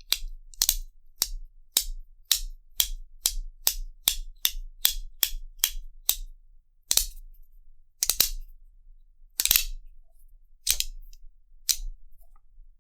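Stainless-steel magnetic haptic fidget coin clicking as its halves snap between magnet detents. A run of sharp clicks, about two a second and speeding up, lasts about six seconds, then slower, irregular single and double clicks follow.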